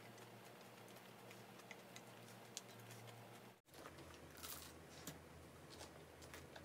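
Near silence: faint, soft clicks of chewing and eating over a steady low hum. The hum drops out for an instant about three and a half seconds in and comes back lower in pitch.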